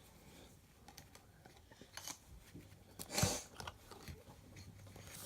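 Trading cards being handled and flipped through: soft scrapes and small clicks of card stock, with one louder rustle about three seconds in.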